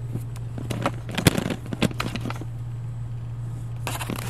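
Steel pipe-threader dies clicking and knocking as they are set down and pushed together on a wooden workbench: a run of sharp clicks, the loudest about a second in, then a brief scrape near the end. A steady low hum lies underneath.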